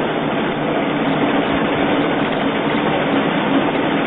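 Corn peeling and grinding mill running: a loud, steady mechanical din with a constant low hum.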